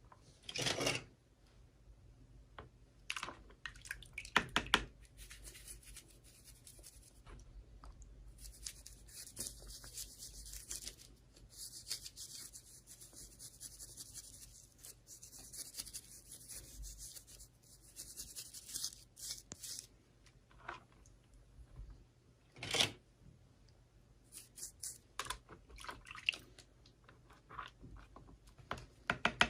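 Hands unboxing toy packaging: rustling, tearing and scraping, with a long stretch of continuous tearing or peeling in the middle, and a few sharp knocks and clicks.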